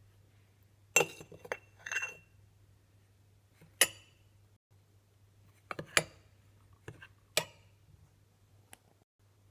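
A spoon clinking against a dish, as when mixing cake ingredients. The clinks are sharp and come at irregular intervals, a few close together, with pauses between.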